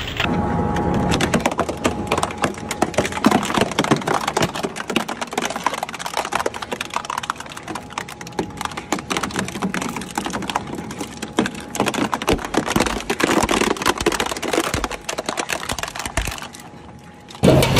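Twin-shaft shredder's hooked steel cutters tearing a hard yellow plastic object apart, with rapid, irregular cracking and snapping. The crackling dies down shortly before the end.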